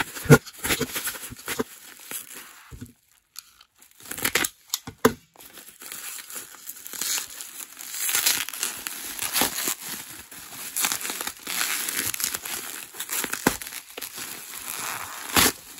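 Bubble wrap and brown packing tape being pulled and unwrapped by hand: irregular crinkling and crackling with some tearing, with a brief lull about three seconds in.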